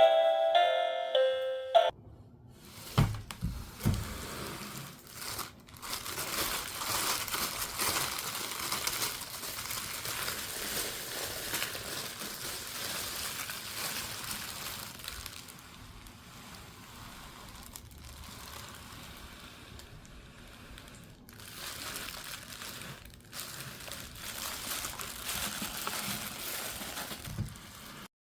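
A short bell-like music cue stops about two seconds in. Plastic packaging then crinkles and rustles steadily as a toy set is unboxed and handled, with a few low knocks soon after the music stops.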